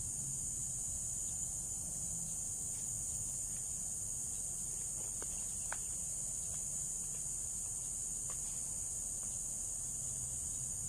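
Steady high-pitched insect chorus, likely crickets, running without a break, with a few faint clicks about halfway through.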